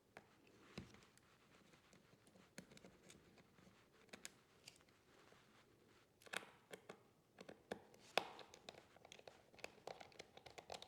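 Faint small clicks and short scrapes of an M.2 NVMe SSD being handled and seated in a laptop's slot, with sharper clicks about six and eight seconds in.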